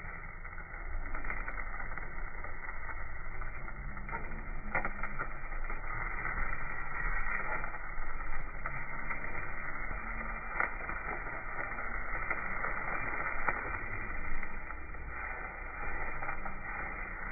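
Meat sizzling on a grill over a wood fire, with scattered sharp crackles, heard with the high end cut off.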